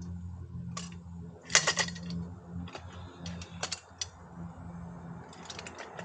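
Metal parts of a Rabaconda tire changer clicking and clanking as it is put together: scattered sharp metallic clicks, the loudest cluster about one and a half seconds in, over a steady low hum.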